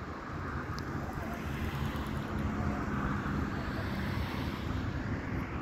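A distant vehicle passing: a steady low rumble with a faint engine hum that swells toward the middle and eases off again.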